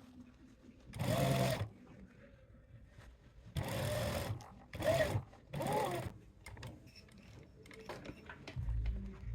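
Sewing machine running in short bursts, about four times, stopping and starting; a low steady hum begins near the end.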